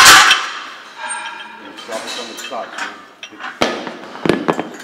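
Loaded barbell with iron plates clanking against the metal rack of a preacher curl bench: one loud ringing clank at the start, then two sharper clanks near the end.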